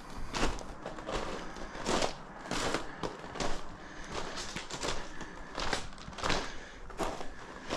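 A hiker's footsteps on a dry trail at a steady walking pace, about three steps every two seconds.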